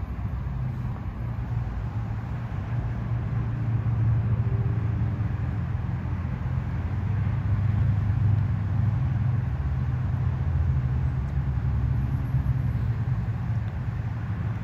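Steady low engine rumble of a motor vehicle, swelling through the middle and easing off toward the end.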